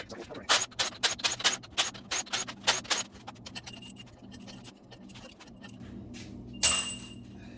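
Ratchet wrench clicking rapidly, about six clicks a second, as bolts are worked on a 5.3 L V8 during teardown, the clicks thinning out after a few seconds. Near the end comes one loud metallic clink that rings briefly.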